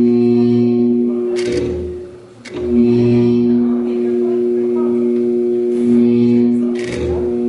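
Sound installation playing a sustained drone of two steady low tones with overtones. The drone fades out about two seconds in and swells back.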